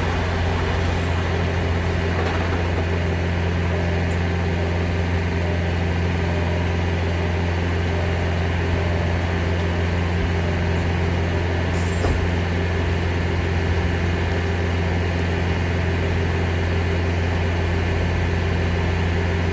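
Semi truck's diesel engine idling with a steady low drone.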